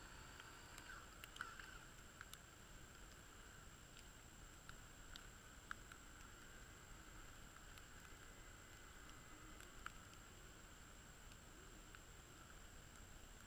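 Near silence: a faint steady high hum with a few soft, scattered clicks.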